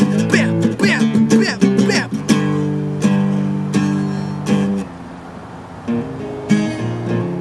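Acoustic guitar strummed with no singing: quick strokes at first, then ringing chords struck a few times, a short quieter gap about five seconds in, and strumming picking up again near the end.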